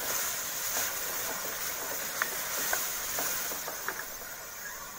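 Hot oil and ghee sizzling in a pan around freshly added ground onion and fried onions, a steady hiss with a few sharp pops and crackles. The hiss eases slightly near the end.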